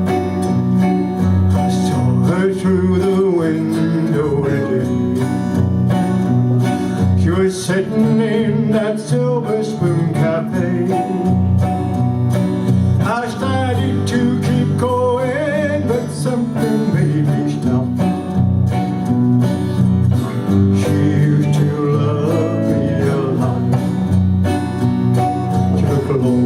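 Instrumental introduction of a country song: guitars playing over a bass line, with a wavering lead melody.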